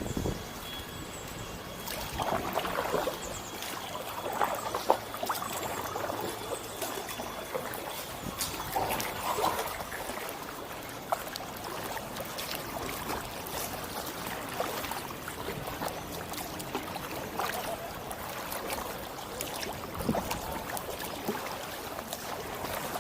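Kayak paddle dipping into canal water, with water trickling and dripping off the blades and soft splashes every few seconds.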